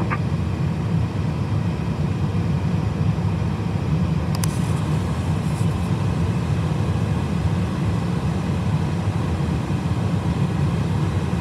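Steady low rumble of an Airbus A320's jet engines idling, heard from inside the aircraft while it waits short of the runway, with one brief click about four and a half seconds in.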